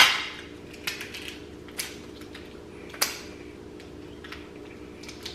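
A few sharp clicks and clinks of a knife, plates and shells being handled while eating lobster and eggs. The loudest comes right at the start, others about one, two and three seconds in, over a steady low hum.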